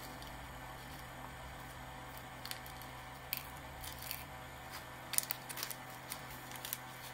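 Faint crinkles and small scattered clicks of a small plastic zip-lock bag being handled with nitrile-gloved fingers over a plastic tray, the clicks coming closer together in the second half.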